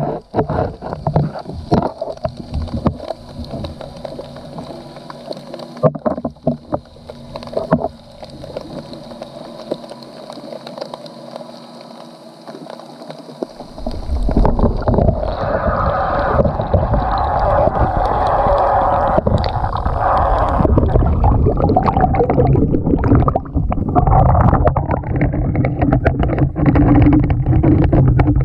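Muffled underwater sound from a GoPro inside a submerged crab trap: scattered clicks and knocks at first, then about halfway through a sudden loud, steady rush of water past the camera as the trap is hauled up toward the surface.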